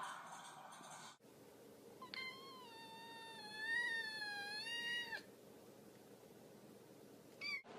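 A cat giving one long, drawn-out meow lasting about three seconds, its pitch wavering slightly, followed near the end by a very short high call.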